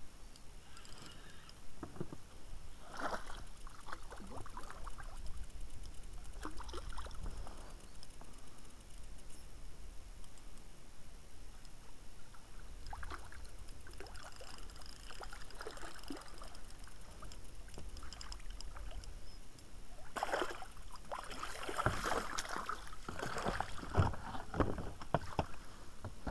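Water splashing and dripping as a landing net is worked in the water beside an inflatable PVC boat, with handling noise and knocks against the boat. The loudest splashing and a few sharp knocks come near the end, as the net is lifted out.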